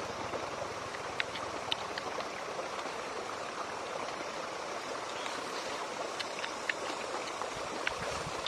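Mountain stream running steadily, a constant rushing of water over rocks, with a few short sharp clicks from eating scattered through it.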